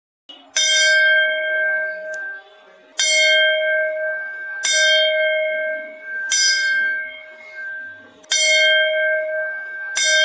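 Hanging brass temple bell rung by hand six times, at uneven gaps of about two seconds. Each strike rings on with a clear metallic tone that fades until the next one.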